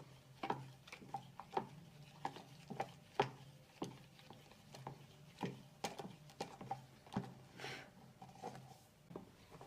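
Tapioca starch and water being stirred in a plastic bowl: a utensil knocks and scrapes against the bowl in irregular small clicks and taps, one or two a second, over a faint steady low hum.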